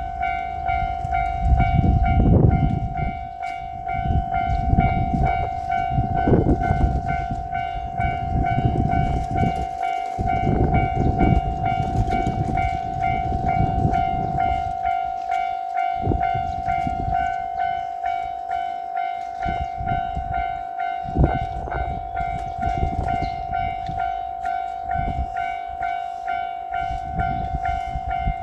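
Japanese level-crossing warning bell ringing in a steady, rapid repeated ding. A JR Shikoku 8000 series electric train passes over the crossing, its wheels rumbling and clattering loudly through about the first half, then dying down while the bell keeps ringing.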